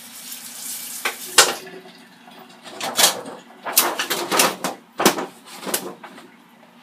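A plastic lid being handled and pressed onto a disposable aluminium foil pan: a brief rustle, then a string of sharp clicks and rattles as the lid is fitted on.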